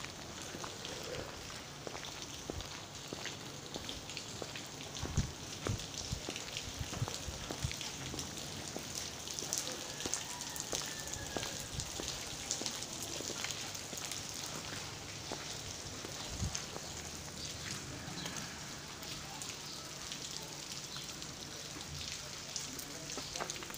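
Rain falling on a wet street: a steady hiss of rain dotted with many small drop ticks, with a few dull low thumps here and there.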